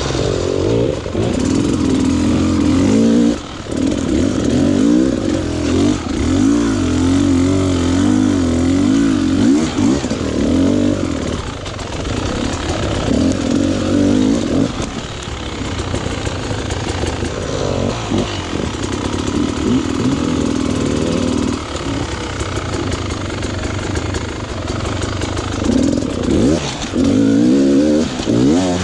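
Off-road dirt bike engine revving up and down, with the throttle opened and closed in short bursts and brief drops between them.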